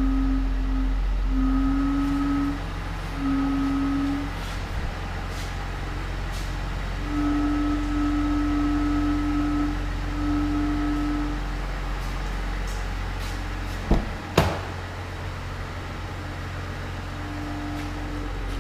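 Duramax 3.0-litre inline-six diesel engine idling with a steady low rumble, and a humming tone that comes and goes every second or two. Two sharp knocks about 14 seconds in.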